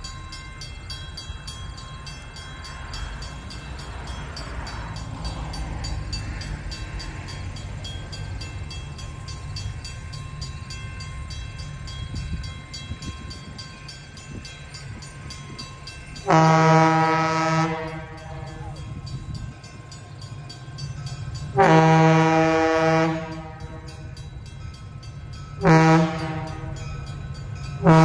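Train horn sounding two long blasts, a short one, and the start of another long one: the pattern of the standard grade-crossing signal. Before the horn there is a low rumble from the train.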